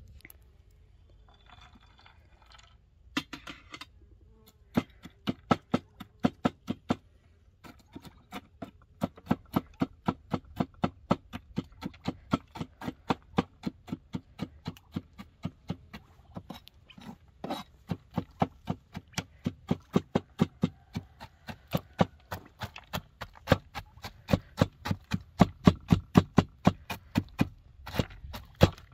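Walnuts being chopped with a broad cleaver on a wooden cutting board: a fast, even run of knocks, about three a second, beginning about three seconds in.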